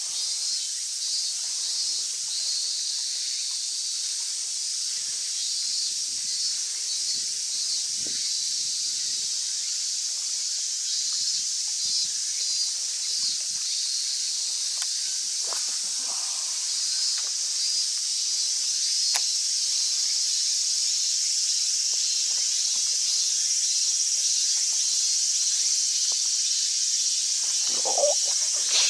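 Steady, shrill chorus of summer insects, with a pulsing texture. Faint ticks sound underneath, and a brief louder sound comes near the end.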